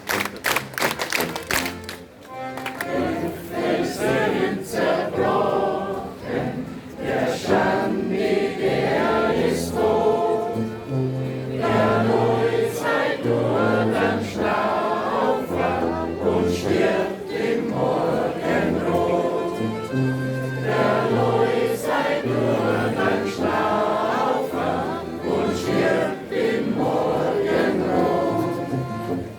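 A group of voices singing together with instrumental accompaniment and a stepping bass line, after a few claps in the first second.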